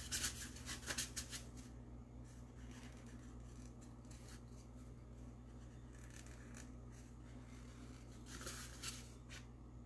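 Faint scratchy strokes of a marker drawing guideline lines on a pumpkin's skin, in short runs near the start and again near the end.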